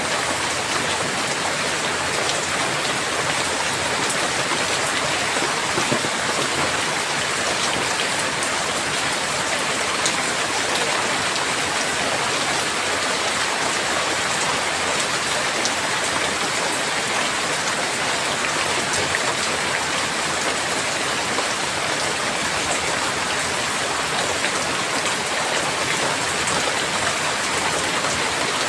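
Steady heavy rain falling, a dense even hiss with fine scattered drop ticks.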